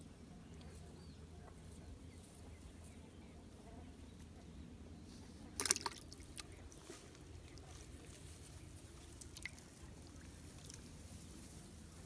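Water splashing briefly in a plastic bucket a little past halfway, followed by a few faint drips and ticks, over a faint steady low background hum.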